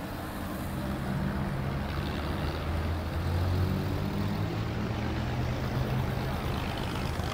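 Engines of vintage open sports cars running as the cars roll slowly past one after another, a steady low engine note that swells a little in the first second.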